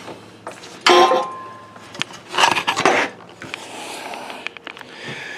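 Metal tools and parts being handled: a sharp metallic clink with a brief ring about a second in, then rattling handling noise and a short hiss.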